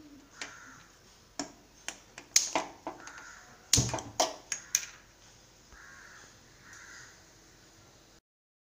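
A quick run of sharp clinks and knocks, like kitchen utensils or a metal spoon striking a pot or dish. Two short, softer sounds follow near the end.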